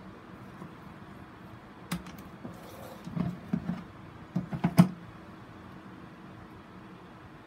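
A plastic grid mounting board knocking and rattling against a plastic tub as it is tilted up and set back down. There is one sharp clack about two seconds in, then a run of knocks between three and five seconds in, the loudest near five seconds.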